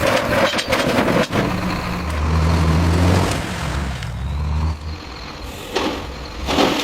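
A heavy vehicle's engine running low and steady, with two sharp knocks in the first second and a half.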